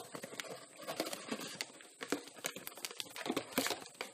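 Packet sachets and a cardboard box rustling and crinkling as a sachet is pulled out of the box by hand, with scattered small clicks and scrapes.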